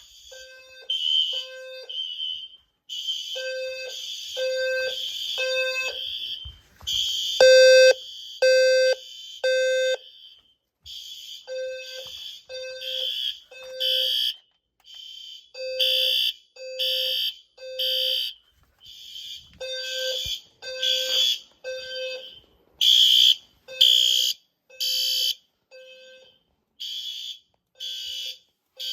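Several System Sensor fire alarm horn strobes sounding together in the temporal-three evacuation pattern: groups of three blasts with a pause between groups. A lower and a higher horn tone overlap slightly out of step.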